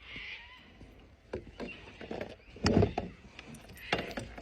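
Scattered knocks and bumps of handling on a kayak, the loudest about two and three-quarter seconds in.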